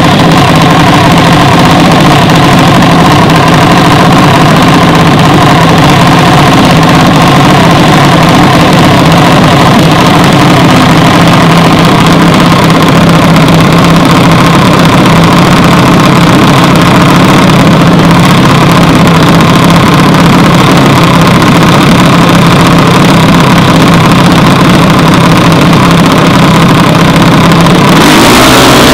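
Junior dragster's single-cylinder engine idling steadily and loudly, warmed up before a run. The sound shifts abruptly near the end.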